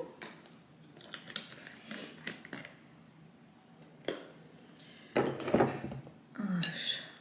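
Kitchen utensils and dishes being handled: scattered clicks and scrapes, with a louder clatter about five seconds in.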